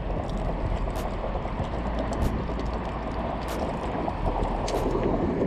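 Steady wind noise on the microphone over small waves lapping at the shore, with a few faint clicks from handling the fish and lure.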